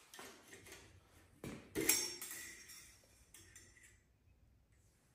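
Light metallic clicks and knocks from hands working on a Kohler lawn tractor engine, the loudest about two seconds in with a brief ring after it, as the oil dipstick is worked free and drawn out of its tube.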